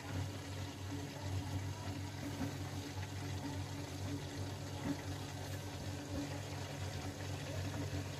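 A steady low hum with an even rushing, water-like noise over it.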